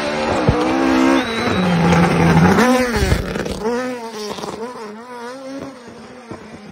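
Rally car engines revving hard, the pitch climbing and dropping with gear changes and lifts off the throttle. A loud pass-by peaks in the first three seconds, then a quieter car keeps revving through the rest.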